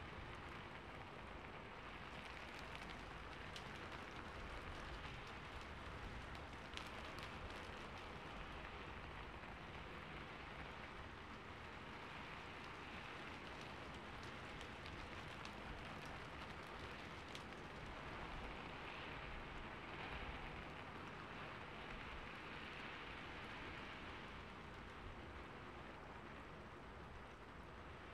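Quiet, steady rain falling, with scattered sharper drop ticks, as a calm rain ambience track.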